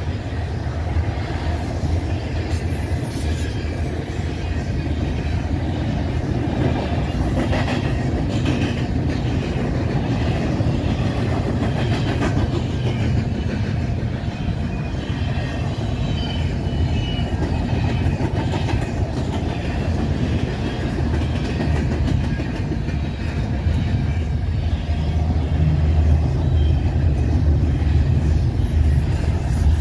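Double-stack intermodal freight cars rolling past on steel wheels: a steady low rumble with rhythmic clicking of wheels over rail joints and a few faint, brief high wheel squeals. It grows a little louder near the end.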